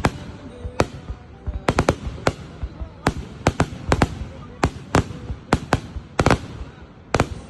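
Fireworks going off: a rapid, irregular string of sharp bangs, about two or three a second, some coming in quick pairs.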